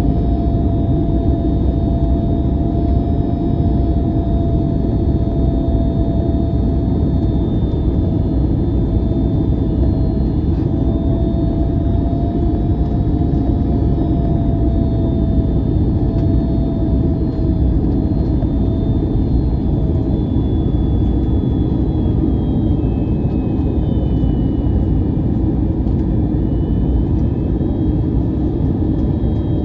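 Airbus A321-200 cabin noise: a steady jet-engine and airflow roar, with a faint wavering whine over it that fades out about two-thirds of the way through.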